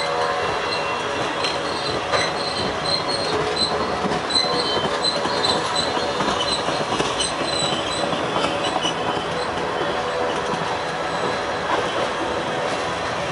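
Freight train cars rolling past on the rails, with a steady rumble and intermittent high-pitched wheel squeal.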